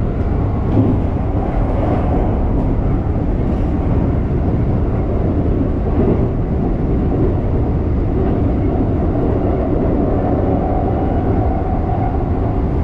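Electric commuter train running along the track, heard from inside the driver's cab: a steady low rumble of wheels on rail. A faint steady whine comes in over the last few seconds.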